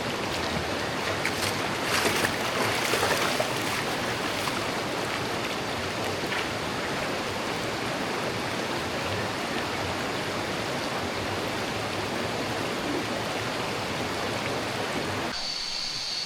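Steady rushing noise with a few brief crackles about two to three seconds in. Near the end it cuts suddenly to a quieter background with a steady high tone.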